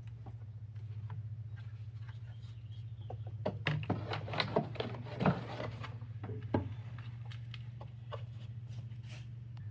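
Scattered clicks and knocks of the air intake duct and its hose clamps being handled and refitted on the engine, over a steady low hum.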